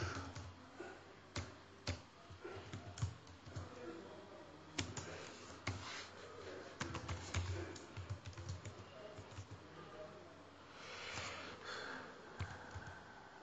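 Typing on a computer keyboard: irregular, soft key clicks, a few strokes louder than the rest.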